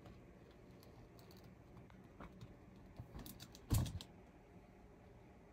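Scattered light clicks and taps of things being handled, likely comic books and their boxes, with one louder thump about two-thirds of the way through.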